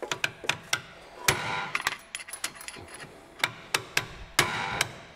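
Uneven hammer strikes, steel on steel, on a long flat tool held against the top of a shock absorber shaft, each with a short metallic ring: driving off an aluminium top-mount insert that has corroded and seized onto the shaft.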